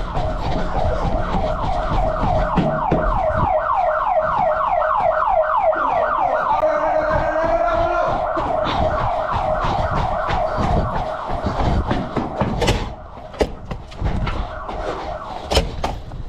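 School intruder alarm sounding: a fast repeating rising whoop, about five sweeps a second, that falls away about twelve seconds in. A few sharp knocks follow near the end.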